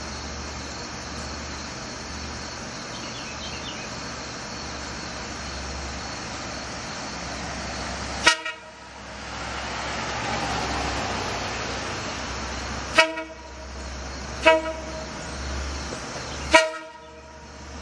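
Four short train-horn toots, the first about eight seconds in and the other three close together near the end, over the steady rumble of an idling diesel locomotive.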